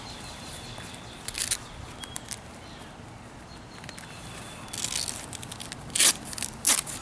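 A Jeep soft-top side window, fabric and clear vinyl in its frame, being turned over and handled: low rustling and crinkling, with a few short sharp rasps, the loudest near the end.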